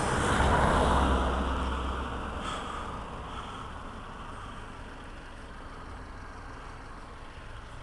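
A road vehicle passing close by: a rumble and rushing noise that is loudest at the start and fades away over the next few seconds.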